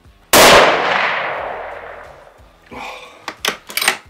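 A single shot from a Mauser M12 Max bolt-action rifle fitted with a sound moderator: a sharp crack about a third of a second in that rings on and fades over about two seconds. Near the end comes a quick run of metallic clicks and clacks as the bolt is worked.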